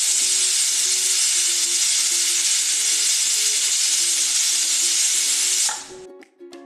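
Prestige Popular aluminium pressure cooker whistling on high flame: steam hisses steadily out past the weight valve, a sign the cooker has come up to pressure. The hiss stops suddenly near the end.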